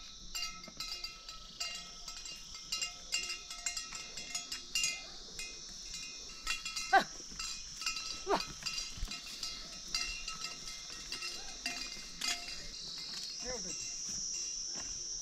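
Bells on livestock clanking and ringing irregularly, over a steady high drone of insects that grows a little near the end. Two short calls that fall in pitch come about halfway through.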